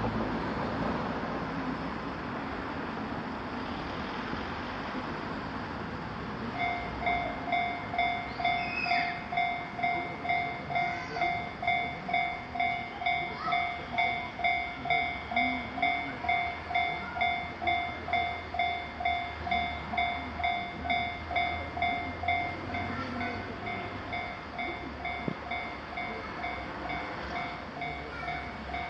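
Japanese level-crossing warning bell dinging steadily, about two strikes a second. It starts about six seconds in over a steady rumble and grows a little fainter near the end.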